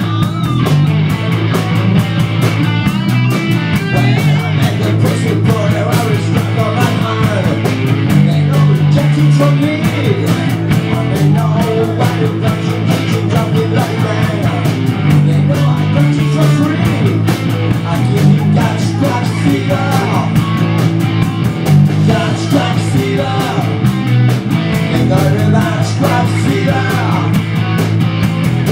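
Live hard-rock band playing loud and steady: distorted electric guitar, bass guitar and a drum kit driving a fast rock beat.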